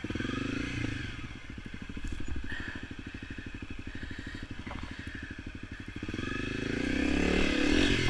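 Honda CRF250L dirt bike's single-cylinder four-stroke engine running at low revs with a steady, even pulse as the bike eases down into a soft sand creek crossing, then revving up over the last couple of seconds as it climbs the far bank.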